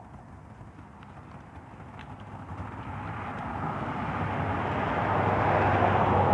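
A passing vehicle, steadily growing louder and loudest near the end.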